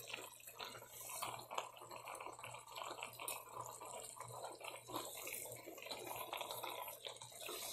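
Brown stew chicken simmering in a pot, its gravy bubbling faintly with small pops and crackles, over a low steady hum.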